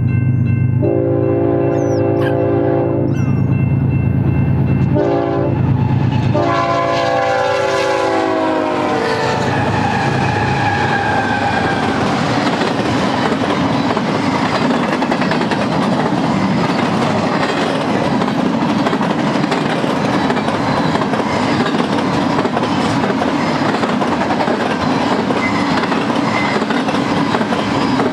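BNSF freight train's GE diesel locomotives passing with a deep engine rumble while the air horn sounds three blasts, the last long one dropping in pitch as the locomotives go by. Then the steel wheels of the double-stack container cars clatter steadily over the rails.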